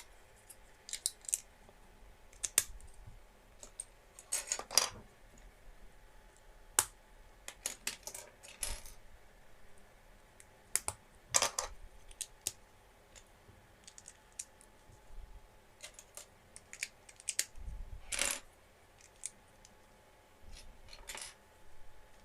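Plastic Lego bricks clicking and rattling as they are handled and pressed together, in scattered sharp clicks at uneven intervals with a few short clattering rattles.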